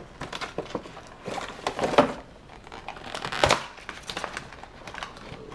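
A Bluetooth speaker's packaging being opened by hand: irregular rustling and clicks, with two louder noises about two and three and a half seconds in.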